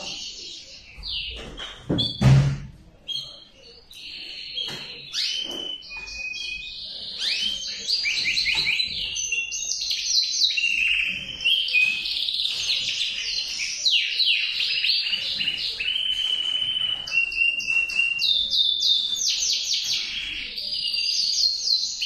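Male canary singing a long, unbroken song of fast trills and rapid repeated notes, with one loud low thump about two seconds in.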